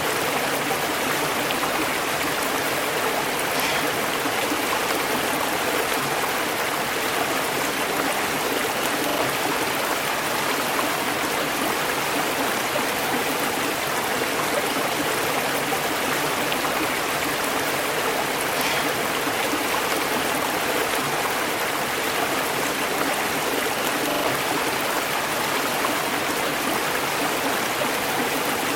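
River water flowing over stones, a steady rushing and burbling.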